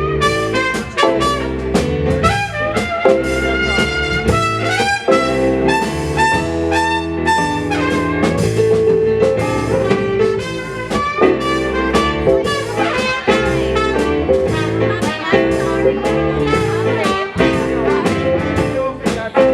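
Live jazz-blues band playing an instrumental break: a horn solo over drums and a walking bass.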